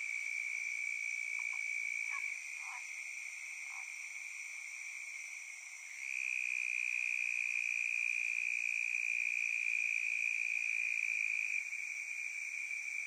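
Steady high-pitched trilling of a calling animal chorus. It eases back about two seconds in and dips near six seconds, then a louder trill takes over until near the end. A few faint short chirps sound in the first four seconds.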